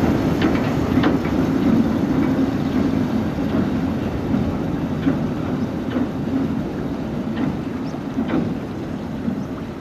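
Hythe Pier Railway's narrow-gauge third-rail electric train running away along the pier with a steady rumble. Its wheels click irregularly over the rail joints, and the sound slowly fades as it draws off.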